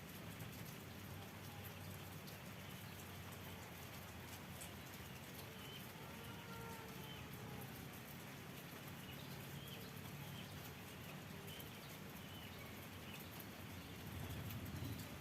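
Light rain falling in a steady faint patter, with scattered faint bird chirps over it.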